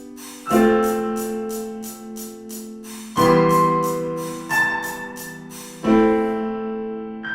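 Lo-fi hip-hop music: soft piano chords struck about every two and a half seconds and left to ring, over quick, steady hi-hat ticks that drop out near the end.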